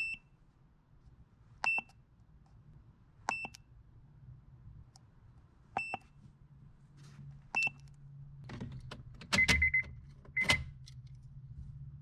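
Keypad beeps of an Autel AutoLink AL619 handheld scan tool: five short high beeps, each with a click, a second or two apart, as buttons are pressed to work through the menus and clear the stored airbag fault code. Near the end come a few louder clatters with two lower beeps, over a low steady hum.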